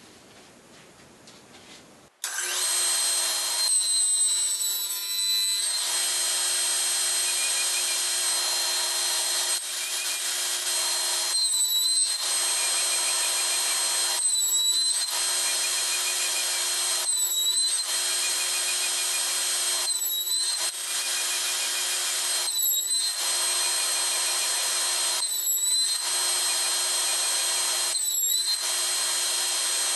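Table saw starts about two seconds in and runs with a steady high whine. From about a third of the way in, its pitch sags briefly about every three seconds as the blade cuts finger-joint slots in the box joint jig.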